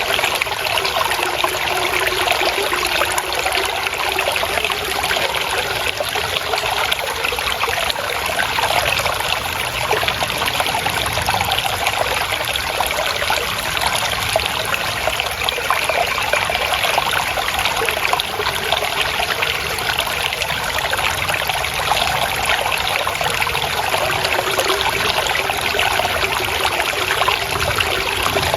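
Water trickling and flowing steadily: a continuous, even splashing rush like a small stream running over stones.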